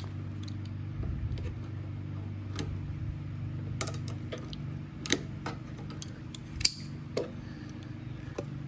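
Scattered sharp clicks and light clinks of hand work on a small engine's fuel line and carburetor, about five in all, spaced irregularly over a steady low hum.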